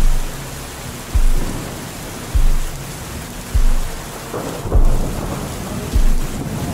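Steady hiss of heavy rain, with a deep bass thump about every second and a bit from the slow beat of the music mixed beneath it. Low held bass notes sit under the rain.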